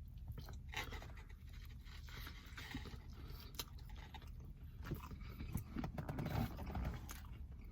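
A person chewing a mouthful of sandwich, with scattered soft rustles, scrapes and mouth clicks from handling the messy food.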